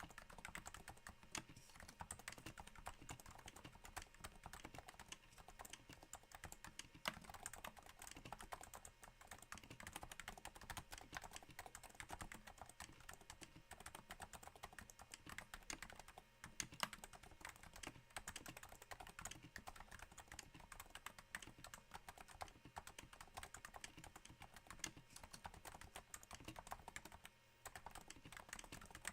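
Continuous typing on a Cooler Master NovaTouch keyboard with Topre switches damped by Hypersphere silencing rings. The key strokes come as a soft, irregular patter, many a second, that sounds a little like rain. There is a brief pause near the end.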